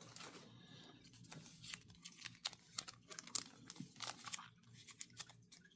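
Faint crinkling and clicking of oversized trading cards being handled, irregular small ticks throughout.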